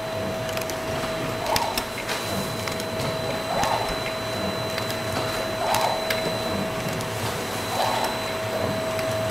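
Automatic three-side-seal paste packing machine for peanut butter sachets running. It gives a steady whine and a burst of mechanical noise with clicks that repeats about every two seconds, one cycle after another.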